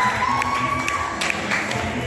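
Crowd cheering and shouting, with a long high-pitched note held over about the first second.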